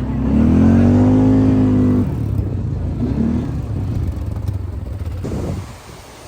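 Quad bike (ATV) engine running under way, with a strong drawn-out rev-up tone near the start. The engine sound cuts off suddenly near the end.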